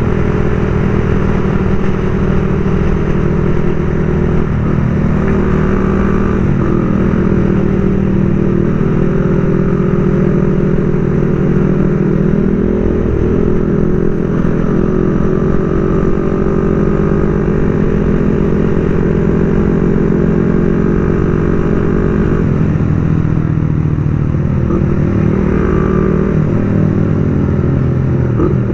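Motorcycle engine running steadily as it is ridden. Its pitch falls and rises again about halfway through and once more near the end.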